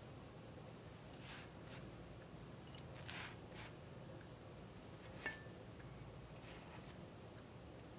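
Pastry brush dabbing sugar syrup onto matcha ladyfinger biscuits: a few faint, soft wet swishes, with a light tap about five seconds in.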